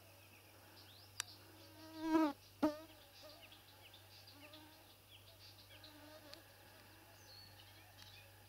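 Mosquito whining close to the microphone, a faint wavering buzz that swells loudest and bends in pitch about two seconds in, then fades in and out. Two short clicks and faint high chirps are heard as well.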